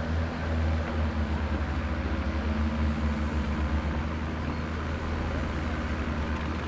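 Diesel tractor engines running at low revs: a steady, low, pulsing rumble with no revving.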